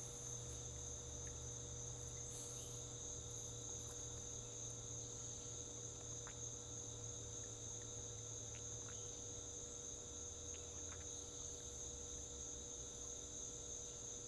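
Steady, continuous chorus of crickets, a high chirring with no break, over a faint low hum.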